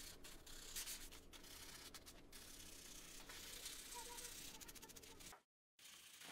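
Faint rubbing of wet and dry sandpaper against a hardened polymer clay lure body being wet-sanded by hand. The sound drops out completely for a moment near the end.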